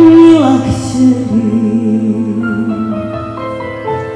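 Female voice singing a traditional song live into a microphone, holding long notes with a wide vibrato over sustained keyboard chords. A strong note at the start slides down, then one long wavering note is held, and the singing grows softer toward the end.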